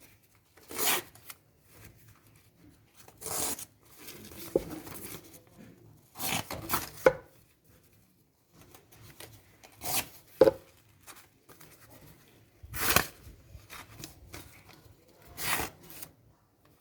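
Knife blade drawn through a homemade sharpener: six short scraping strokes, one every two to three seconds, with a few sharp clicks between them.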